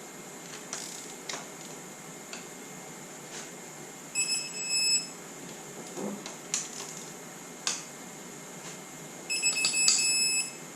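Digital torque wrench beeping twice, each beep about a second long, signalling that a cylinder head bolt has reached its 40 ft-lb target on the second tightening pass. Faint clicks come between the beeps.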